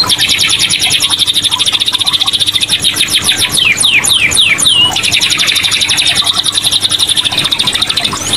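Domestic canary singing in full song: a fast, continuous trill of rapidly repeated notes, broken a little before halfway by a short run of separate falling whistled notes, then trilling rapidly again.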